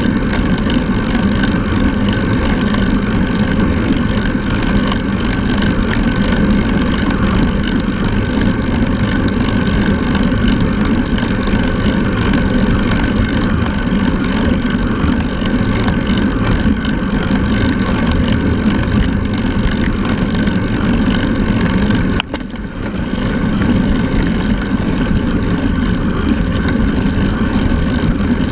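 Steady wind rush over the microphone of a handlebar-mounted action camera on a road bike riding at speed, mixed with the rolling noise of the tyres on asphalt. It dips briefly once, about three-quarters of the way through.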